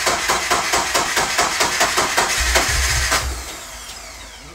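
Starter motor cranking the twin-turbo flat-four engine of a long-stored car, with a rapid even beat. It cuts off about three seconds in without the engine catching, and the sound dies away.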